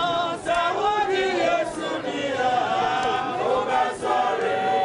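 A crowd of many voices singing and chanting together, with one long sung note held through the second half.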